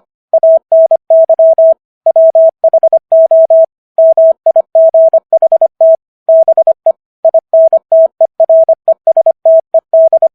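Morse code sent at 25 words per minute: a single steady mid-pitched beep keyed on and off in quick dots and dashes, with slightly longer gaps between letters and words.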